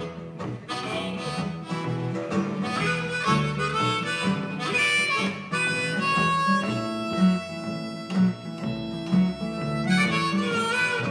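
Harmonica and acoustic guitar played together, one musician with the harmonica in a neck rack: the harmonica holds drawn-out notes over a steadily strummed guitar.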